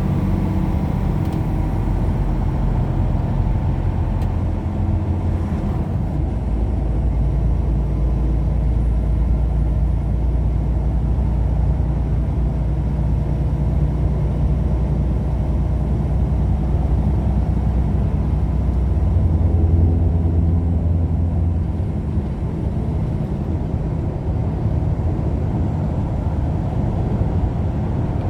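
Steady engine and road drone of a vehicle on the move, heard from inside the cab, with a low engine hum that swells briefly about two-thirds of the way through.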